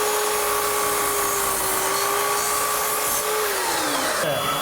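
Electric power saw running at a steady whine, its motor winding down in pitch about three and a half seconds in after the cut. A different steady high whine starts near the end.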